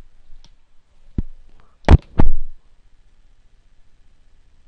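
Four short knocks, the two loudest about two seconds in and a quarter of a second apart, then little else.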